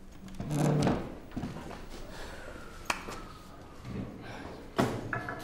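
A brief low voice sound about half a second in, then two or three sharp light clicks or knocks, the clearest about three seconds in and near the end.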